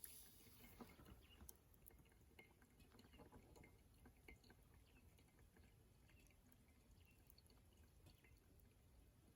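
Near silence: a soft hiss in the first second, then scattered faint ticks.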